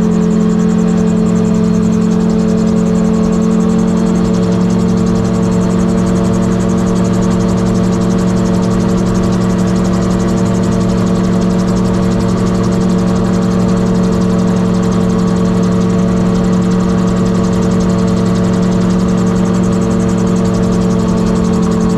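Gyroplane's piston engine and pusher propeller running at steady high power through the takeoff roll and climb, a loud constant drone with air rushing past the cockpit.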